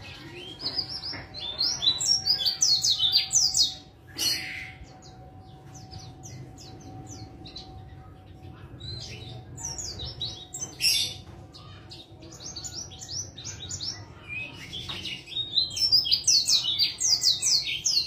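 White-eye (pleci) singing: fast, high twittering chirps in three bouts, one near the start, one around the middle and a longer one near the end.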